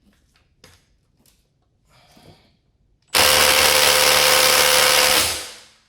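Milwaukee M18 Fuel impact driver hammering on a lug nut in reverse for about two seconds, then winding down after the trigger is let go. It is struggling to break loose a nut torqued to about 82 ft-lb. A few faint clicks come before it.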